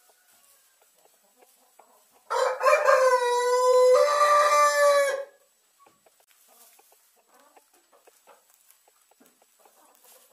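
A rooster crowing once, a single call of about three seconds starting a little over two seconds in. Faint scattered clicks come before and after it.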